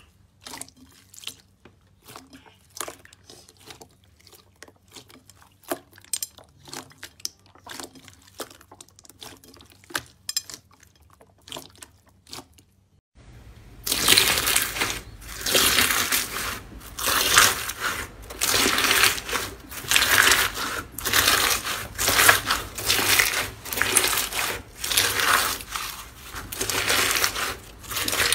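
Hands squishing a blue clear slime, making faint wet clicks and pops. About 13 seconds in, this gives way to loud crunching as hands squeeze a white crushed-ice style crunchy slime, about one squeeze a second.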